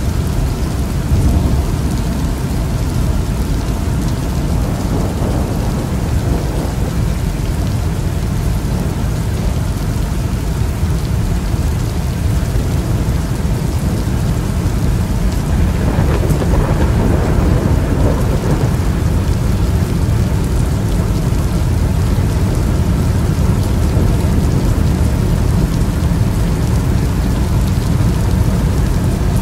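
Steady heavy rain with thunder rumbling, and a roll of thunder swelling up a little past halfway.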